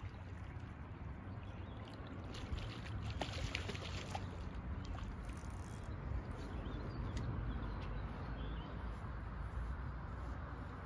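Lake water lapping and trickling at a rocky shoreline, with wind rumbling on the microphone. A cluster of small clicks and splashes comes about two to four seconds in.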